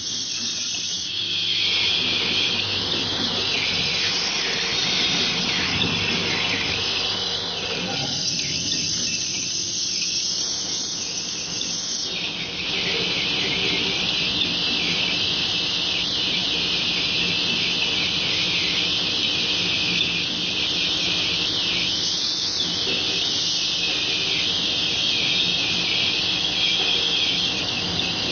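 Automatic screw-driving assembly machine with a pneumatic rotary indexing table running: a steady high hiss with a low machine hum beneath.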